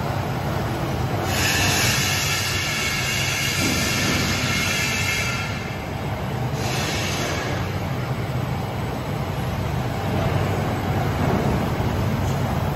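ABA LDPE blown-film extrusion machine running: a steady low mechanical hum under constant machinery noise. About a second in, a higher hiss joins for around four seconds, then briefly again a little later.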